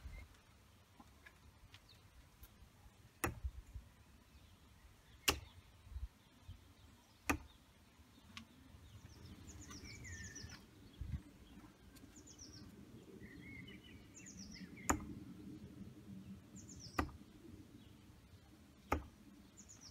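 Steel-tip darts striking a Winmau Blade 4 bristle dartboard: two rounds of three sharp thunks, about two seconds apart, with a pause between the rounds. Small birds chirp in the pause.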